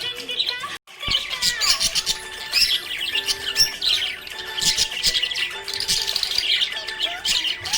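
Budgerigars chirping and warbling in a dense stream of rapid squeaky chirps and short squawks, with a brief break just under a second in.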